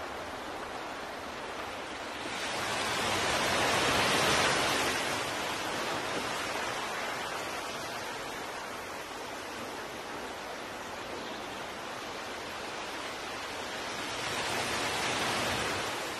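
An even hiss of noise, with no tones or distinct knocks, swelling louder about three seconds in and again near the end.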